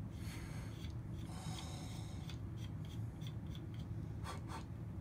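Small metal hand tool scraping and clicking as it unscrews a skull pin of a halo brace: scraping rubs in the first two seconds, then a run of light clicks about three a second, with two short rubs near the end, over a steady low hum.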